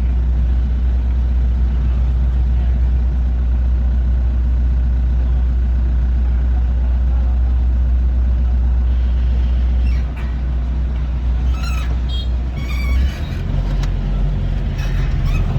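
Rice combine harvester's engine running with a steady low rumble. About ten seconds in it drops in level and gets more uneven, with some brief clattering near the end.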